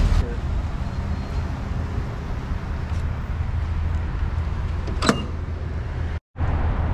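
Steady low mechanical hum, with one sharp click about five seconds in and a brief cut-out of all sound just after six seconds.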